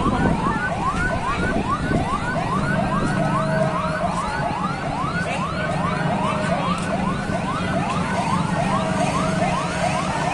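Sirens yelping, with rapid rising pitch sweeps about three a second; more than one siren overlaps, out of step, and a slower falling wail runs through at times.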